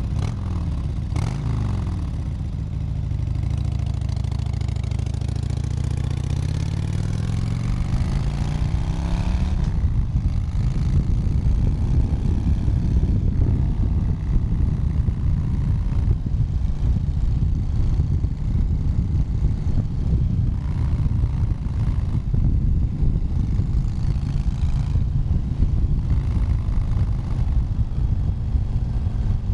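Motorcycle engine heard from the rider's seat as the bike is ridden: the engine note rises in pitch over the first several seconds as it accelerates, then settles into a steady, rough running sound at speed.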